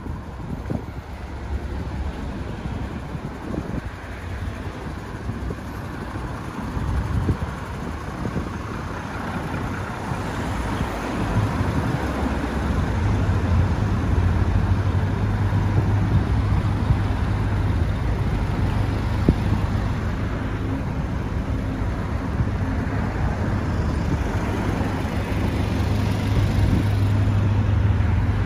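Street traffic noise with yellow minibuses idling close by; from about twelve seconds in a steady low engine hum comes up and stays.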